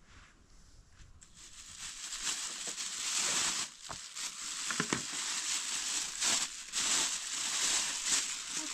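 A rustling, crackling noise sets in about a second in and grows louder over the next two seconds, then carries on with irregular crackles.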